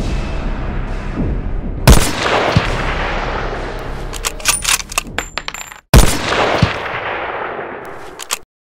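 Home-made trailer sound effects: a low rumbling drone, then a heavy boom about two seconds in, trailed by a dense rushing crash. A quick run of sharp cracks like gunfire follows and breaks off abruptly, then a second boom hits and its crash slowly fades away.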